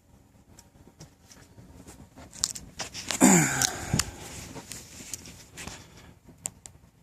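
Handling noise from metal multi-tools: scattered clicks and rustles. About three seconds in comes a louder scrape with a short sound falling in pitch, and a sharp click follows about a second later.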